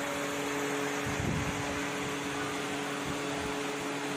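Steady hum of an electric ventilation fan with constant tones, and a few soft low thumps.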